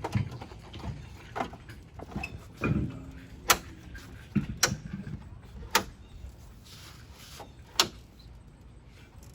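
Hand work on truck parts: four sharp clicks spread over several seconds, mixed with a few dull knocks.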